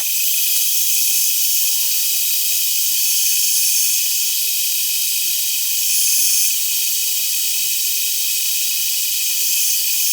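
Machine tool cutting an aluminium workpiece: a steady, loud high-pitched hiss with a thin whine running through it, swelling briefly about six seconds in.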